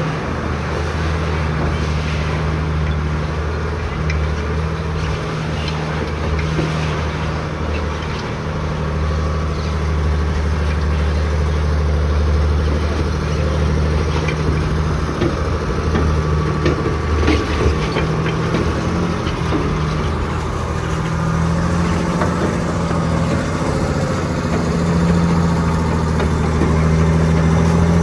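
Diesel engine of a tracked Lance missile transport vehicle running steadily at low revs as it drives slowly, with a few clanks from the steel tracks.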